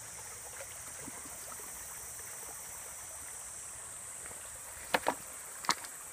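Steady hiss of a shallow river flowing, with a few short, sharp water splashes about five seconds in from a person wading and ducking into the water.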